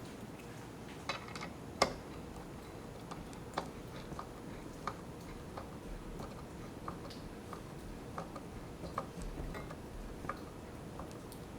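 Scattered light clicks and taps at an uneven pace over a steady low hiss, with one sharper knock about two seconds in.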